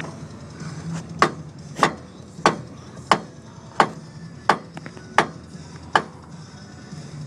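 A hammer striking eight times at an even pace, about one blow every two-thirds of a second, each a sharp knock with a short ring.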